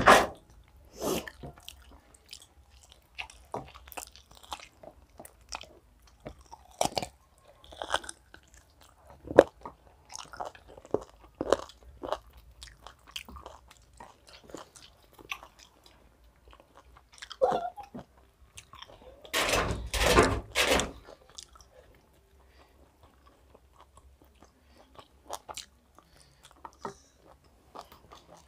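Close-up chewing and biting of chicken biryani eaten by hand, with scattered small crunches and clicks as meat is pulled from the chicken pieces. There is a louder burst of noise about two-thirds of the way through.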